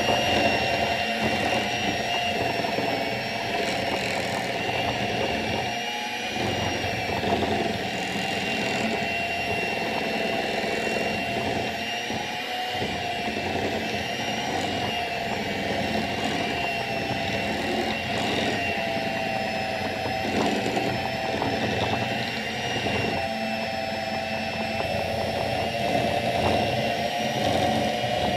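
Electric hand mixer running steadily, its motor giving a high whine as the beaters churn a thick batter in a glass bowl.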